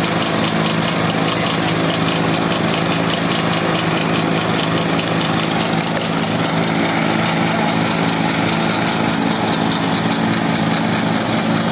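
Petrol engine of a 15 HP ride-on lawn mower running steadily at an even speed.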